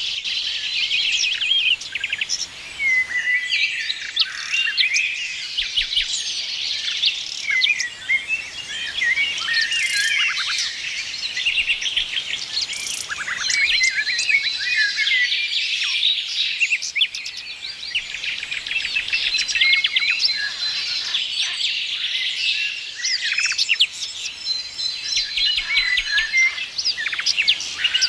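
Many small songbirds singing and chirping together in a busy chorus, with overlapping trills, quick chirps and high whistles.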